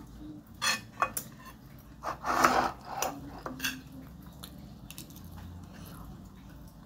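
Metal spoon clinking and scraping against a glass bowl while scooping up rice: several short clicks, with a longer scrape about two and a half seconds in.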